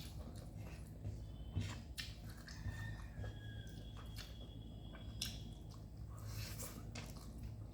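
A person chewing a mouthful of rice and dal, with soft, irregular wet mouth clicks. A faint low hum runs underneath.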